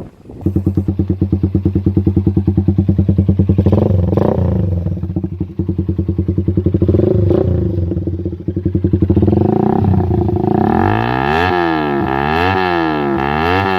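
Motorcycle engine with a HiSpeed open-spec big-tip exhaust and a 28 mm carburettor starts about half a second in and idles with a loud, pulsing beat, with a few short blips of the throttle. Near the end it is revved up and down several times in quick succession.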